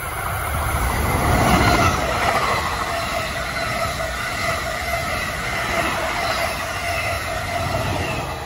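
NJ Transit commuter train of multilevel coaches with an ALP-46 electric locomotive passing close by on the near track. Its wheels rumble on the rails under a steady whine, growing louder over the first two seconds as the train arrives.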